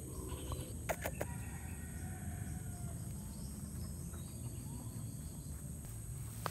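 Rural outdoor ambience: a steady high drone of insects over a low wind rumble, with a few faint distant bird calls and a couple of short clicks about a second in.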